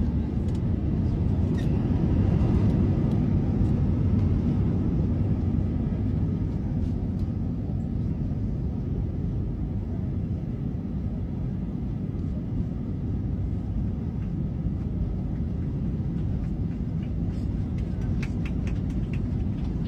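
Steady low rumble of an Airbus A321 airliner's cabin in flight: engine and airflow noise heard from a passenger seat, with a few faint ticks near the end.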